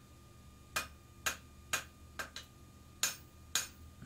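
Hand hammer striking red-hot coil spring steel on an anvil: about seven short, sharp blows at roughly two a second, drawing the bar out thin for a knife blade.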